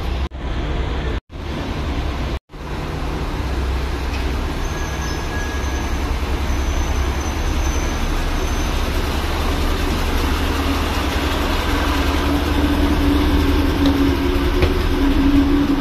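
A CP passenger train standing at the platform with its engines idling: a steady low hum under a noisy rumble, with a higher hum growing stronger in the second half. The sound drops out briefly twice in the first few seconds.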